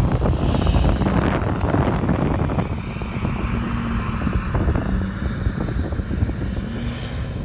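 Lifted GMC Sierra Denali HD pickup accelerating away across loose, rocky desert dirt: a heavy low engine rumble with crackling from the tyres on stones, loudest in the first few seconds, then settling into a steadier, slightly fainter drone as the truck moves off.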